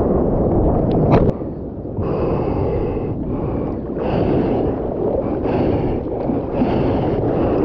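Rushing whitewater and wind buffeting a board-mounted action camera's microphone. A sharp knock about a second in, after which the rush drops off. The surfer then breathes hard in gasps, over the wash of the water.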